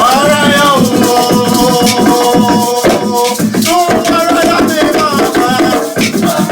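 Live percussion music: drums and shakers playing a dense, steady rhythm, with voices singing long held notes over it.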